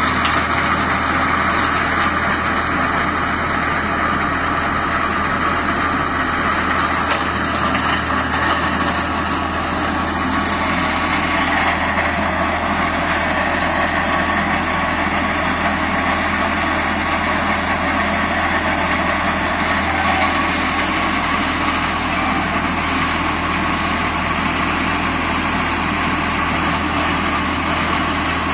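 Deutz D4006 tractor's air-cooled diesel running steadily under load, driving a PTO flail mulcher with paddle flails that chews through brush and undergrowth.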